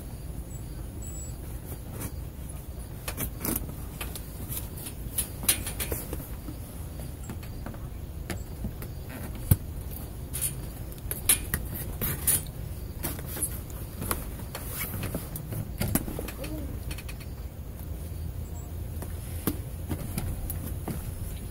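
A cardboard box being worked open by hand: scattered sharp clicks, scrapes and crackles of packing tape and cardboard being picked, cut and pulled, over a steady low rumble.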